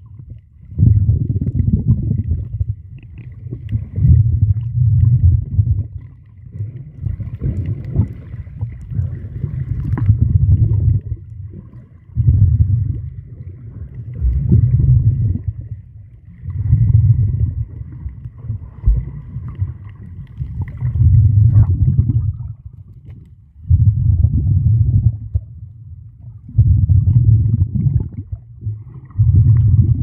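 Underwater recording on a snorkel dive: muffled low rumbling water noise that surges and fades every two seconds or so, with a faint thin high tone underneath.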